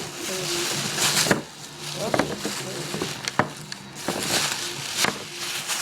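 Plastic bag and packaging crinkling and rustling as a pair of football cleats is pulled out and unwrapped, with several sharp clicks and taps along the way.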